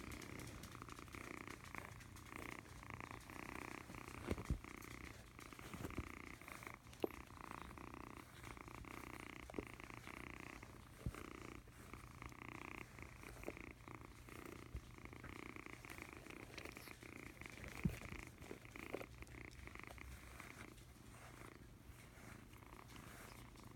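Kitten purring steadily, close to the microphone, while it is being brushed. A few brief knocks from handling break in now and then.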